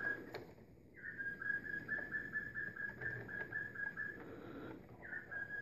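A high whistling trill that keeps repeating: one steady note pulsed about six times a second, in runs of about three seconds, each run opening with a short higher note. Runs begin about a second in and again about five seconds in.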